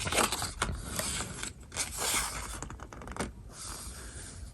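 Pages of a paper instruction booklet being turned and handled: several papery swishes and rustles.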